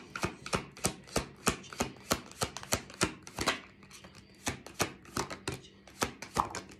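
A deck of tarot cards being shuffled in the hands: a quick, uneven run of sharp card slaps and clicks, about three or four a second.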